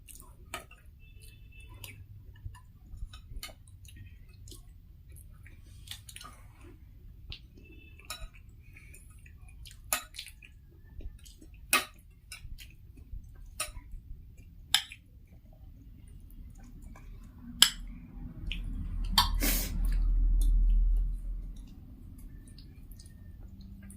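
Eating sounds: spoons and cutlery clinking against plates, with chewing between, as sharp clicks every second or two. About three quarters of the way through, a louder low rumble lasts a few seconds, opened by a sharp knock.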